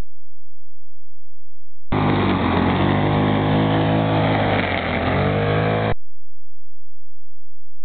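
Small engine of a wheeled brush cutter running at high speed as its string head cuts grass, the pitch dipping twice as it bogs under load. It cuts in about two seconds in and stops abruptly about four seconds later.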